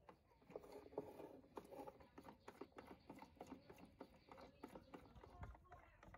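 Faint, irregular plastic clicking and rattling from a Lab-Box daylight developing tank as its agitation knob is turned by hand, spinning the film reel inside the tank.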